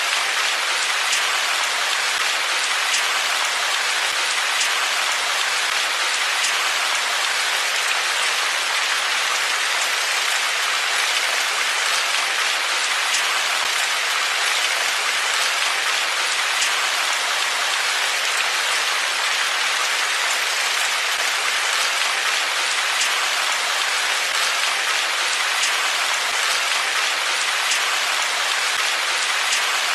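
Steady rain falling and pattering on surfaces, with scattered individual drops ticking through it.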